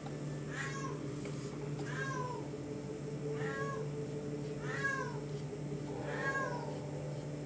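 Domestic cat meowing repeatedly: five short calls, each rising then falling in pitch, about one every second and a half.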